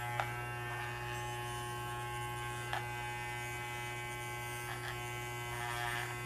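Electric pet hair clippers running with a steady buzzing hum while trimming the fur between a small dog's paw pads, with a few brief clicks along the way.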